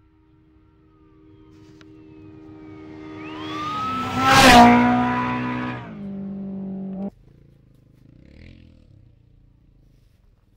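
Off-road race vehicle approaching at speed and passing close by. Its engine grows louder, peaks with a rush of tyres and dirt about four and a half seconds in, then drops in pitch as it moves away. The sound cuts off suddenly about seven seconds in.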